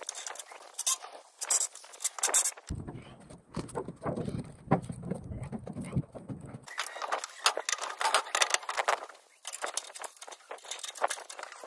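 Scaffolding work: steel scaffold tubes, fittings and timber boards clinking, clanking and knocking as a small step-up is fitted over a porch roof. In the middle comes a few seconds of low rumbling with fewer knocks.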